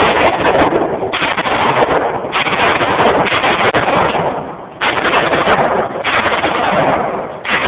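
A series of loud gunshots, about five, spaced a little over a second to two and a half seconds apart, each with a long trailing decay.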